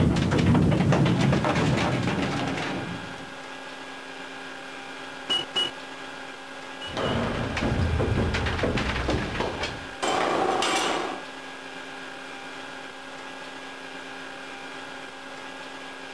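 Mine hoist cage rattling down the shaft, dying away after about three seconds to a steady hum of underground machinery. Two short high beeps follow. Then come clanking and a sliding, scraping burst about ten seconds in as the cage stops and its gate opens.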